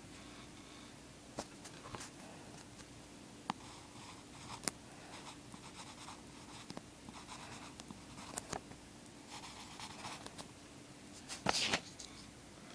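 Pencil scratching lightly on paper in short drawing strokes, with scattered sharp clicks and taps, over a faint steady hum. A louder brief scrape comes near the end.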